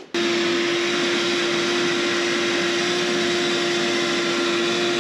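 A steady motor-driven machine running, a constant whining hum over a noisy rush, cutting in suddenly right at the start.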